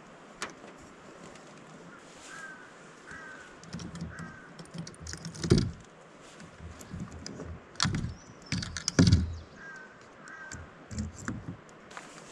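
A bird gives five short, identical calls, three about two to four seconds in and two near the end. Several loud knocks and clatters come in between, the loudest about midway.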